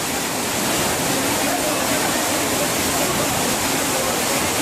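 Steady rush of strong wind and rough, storm-driven sea surf, with wind blowing across the microphone.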